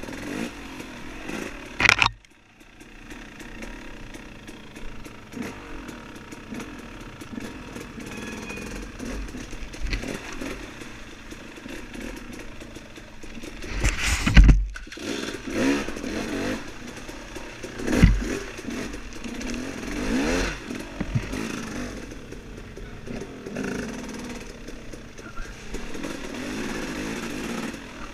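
Dirt bike engine being ridden off-road, revving up and down as the throttle is worked. A few sharp loud knocks or thumps cut in, the loudest about halfway through.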